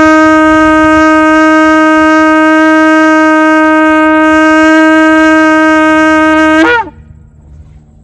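A shofar blown in one long, steady, loud blast held for nearly seven seconds. The note ends with a brief upward flick in pitch before it cuts off.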